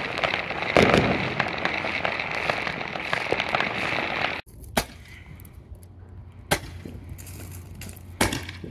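Fireworks going off: dense crackling with a loud bang about a second in. The crackling cuts off abruptly about four seconds in, leaving single sharp bangs about every second and a half.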